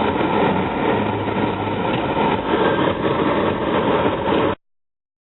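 Steady engine and cabin noise inside a 2004 Pontiac Grand Prix GT with a 3.8-litre 3800 V6, heard from the driver's seat. It cuts off abruptly to dead silence about four and a half seconds in.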